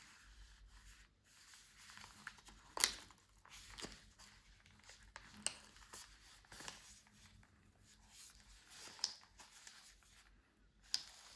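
SSD retail packaging being handled and opened: soft rustling and scraping of cardboard and plastic, with several sharp clicks and snaps spread through.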